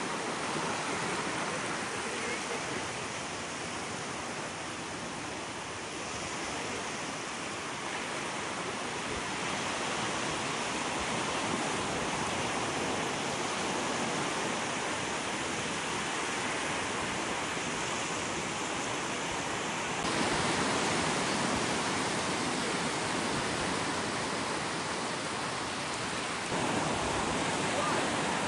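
Sea waves breaking and washing on the shore, a steady rushing wash that swells and eases, growing a little louder about twenty seconds in and again near the end.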